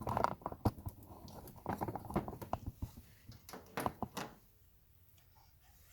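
Scattered sharp clicks and light knocks of small parts and tools being handled while a winch is taken apart. They stop about four seconds in, leaving faint room noise.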